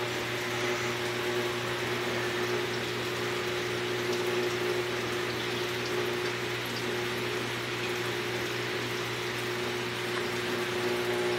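Large saltwater aquarium's water circulation running: a steady rush of moving water over a constant pump hum.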